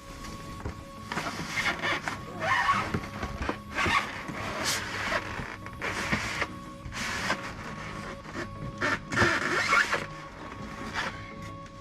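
Background music with a steady held tone, over irregular rustling and scraping of packaging being handled as a table saw is unboxed, with a few sharp clicks.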